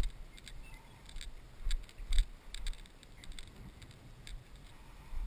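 Footsteps swishing through long grass, with the body-worn camera jostling: a few sharp rustles with low thumps about half a second apart near the middle, quieter toward the end.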